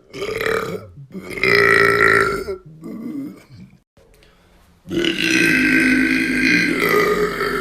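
A man burping loudly and on purpose: three burps in the first three seconds, then after a short pause one long, drawn-out belch of nearly three seconds whose pitch slowly falls.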